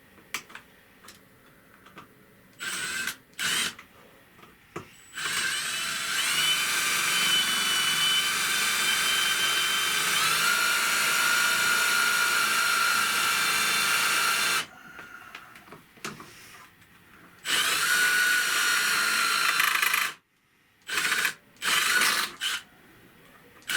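Electric drill boring a hole through the metal door panel sweep trim. A few short blips of the trigger lead into a run of about ten seconds whose whine drops in pitch about halfway through as the bit bites. After a pause comes a second run of about three seconds, then a few short blips near the end.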